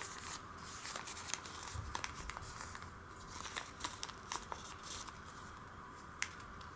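Origami paper crinkling and crackling as fingers press its folds into creases, busy for the first few seconds and then sparser, with one sharper tick near the end.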